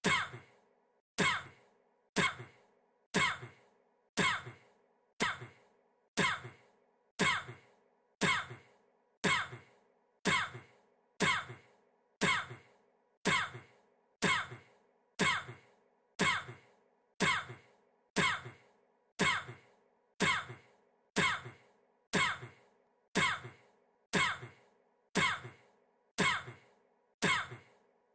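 A man's single short cough, looped so that it repeats about once a second, every repeat alike, over a faint steady hum.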